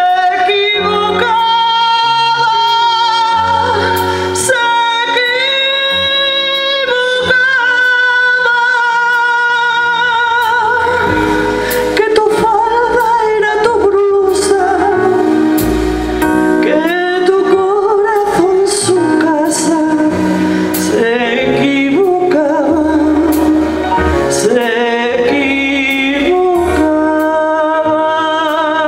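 A woman singing with long held, gliding notes over electronic keyboard accompaniment.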